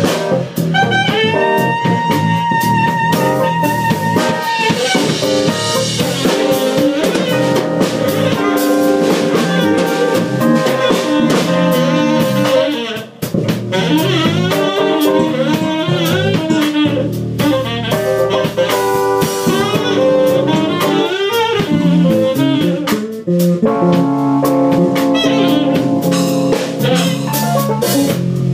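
Live jazz combo: a saxophone holds a long note with vibrato over drum kit and keyboard, then a woman sings into the microphone over the band. The music drops away briefly about halfway through.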